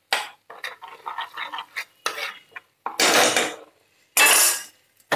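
A steel spoon stirring and scraping in a frying pan of bubbling butter tadka, with quick clinks against the pan. About three and four seconds in come two louder bursts of rushing noise.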